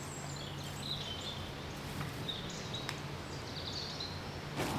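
Woodland ambience: small birds giving a few short, high chirps over a faint steady low hum, with a brief rustle near the end.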